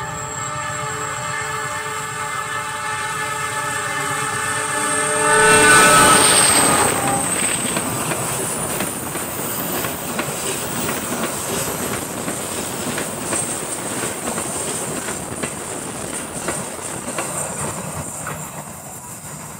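A passing train's locomotive sounds a long horn of several tones at once, held for about six seconds and dropping in pitch as it goes by. The train's cars then rattle past over the rails, fading near the end.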